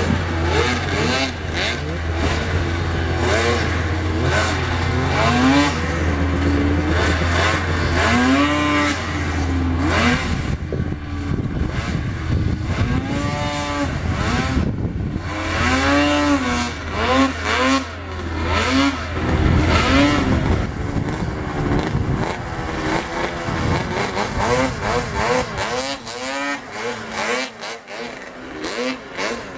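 Snowmobile engines revving hard on a steep hill climb, their pitch rising and falling again and again as the throttle is worked. A steady low hum runs under them and stops about two-thirds of the way through.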